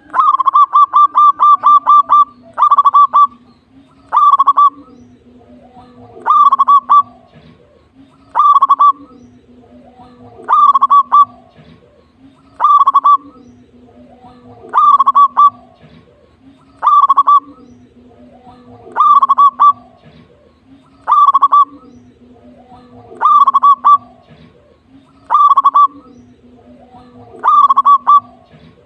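Zebra dove (perkutut) cooing loudly: a long run of quick staccato notes at first, then the same short phrase repeated about every two seconds.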